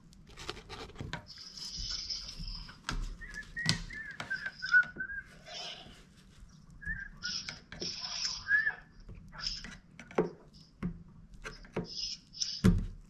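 Screwdriver clicking, knocking and scraping against the plastic pump opening and rubber seal of a Corvette fuel tank as the seal is pried into place. A few wavering whistled notes come in the middle.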